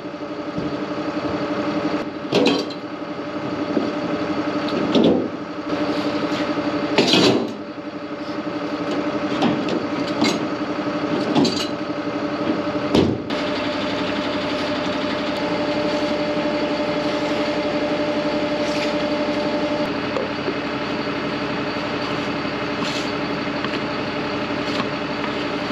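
DAF combination jet-vac tanker running steadily with a humming drone. Sharp knocks and clanks come several times in the first half as hoses and pipe fittings are handled.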